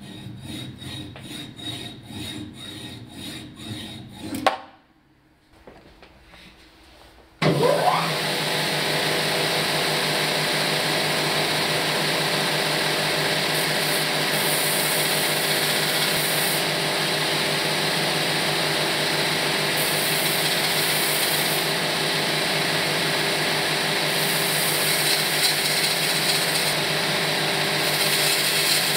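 A hacksaw cutting a thin metal rod held in a lathe chuck, with rhythmic back-and-forth strokes, stops after about four and a half seconds. About three seconds later a belt grinder switches on with a rising whine and runs steadily, with stretches of hiss as a small metal part is pressed against the belt and ground.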